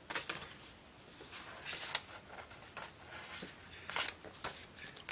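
Sheets of paper rustling and sliding as they are handled: a handful of short rustles, the loudest about two and four seconds in.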